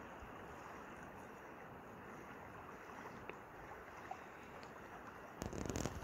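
Faint steady lakeshore ambience: small waves lapping on a pebble beach with wind. A louder burst of noise comes in near the end.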